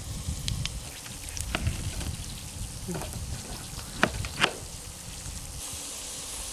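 Food sizzling faintly on a charcoal barbecue grill, with a few sharp clicks and knocks from metal tongs and a knife on a wooden board. Near the end, soy sauce is poured into a hot cast-iron skillet of bamboo shoots and the sizzle grows louder.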